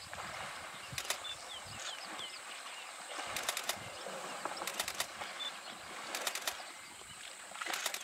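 African elephants wrestling in a waterhole, water splashing and sloshing around them, with five short runs of sharp splashes about every second and a half. Faint bird calls come through in the background.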